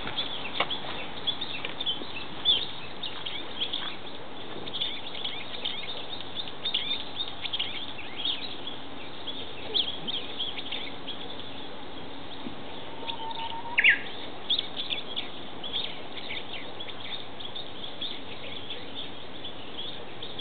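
Japanese bush warbler calling: a steady stream of short high chirps, and about 13 seconds in one louder song phrase, a held lower whistle followed by a sharp higher note.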